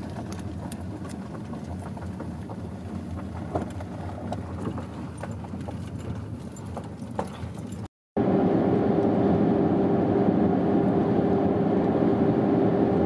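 Car tyres rolling slowly over a gravel dirt track, heard inside the cabin, with many small stone clicks and ticks. After a sudden cut about eight seconds in comes a louder, steady drone of road and engine noise with a held low hum, as the car travels at speed on a main road.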